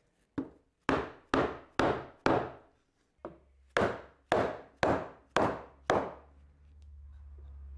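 Hammer blows on a wooden board: a light tap followed by four hard strikes, then a light tap followed by five more, each with a short ring. The strikes drive the board down onto marking pins to mark dowel-hole positions for the joint. A low hum comes up in the last couple of seconds.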